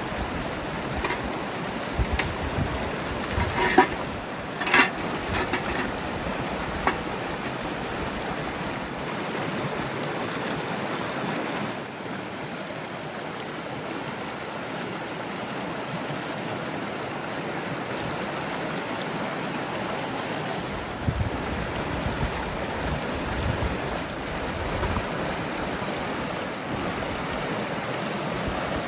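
River water rushing steadily, with a few sharp knocks about four and five seconds in.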